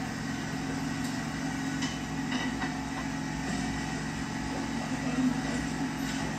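Outrigger boat's engine running with a steady low drone, with a few faint knocks over it.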